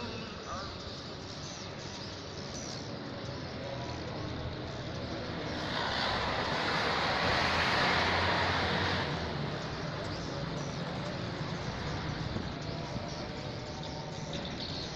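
A road vehicle passing by: a broad rush of noise swells up about six seconds in, peaks, and fades away a few seconds later, over a steady background hum.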